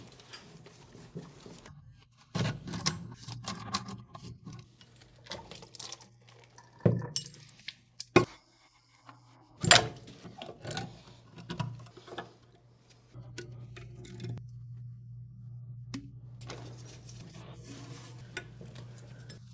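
Hand tools and metal fittings clinking and knocking during work on a urinal, with a few sharper knocks in the middle, over a low steady hum that grows more noticeable in the second half.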